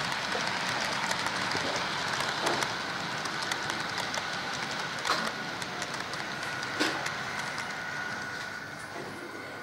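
Model freight train rolling past on the layout's track: steady running noise of the wheels on the rails, with a sharp click now and then, easing off slightly towards the end.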